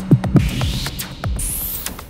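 Electronic music with deep thumps on the beat and a high sweep rising in pitch in the second half.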